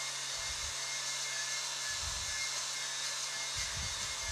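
Wire wheel spinning on a power tool, scrubbing primer off a sandblasted cast iron plate down to bare metal. A steady whirring hiss with a constant hum, and rough low rumbles come and go as the wheel is pressed into the iron.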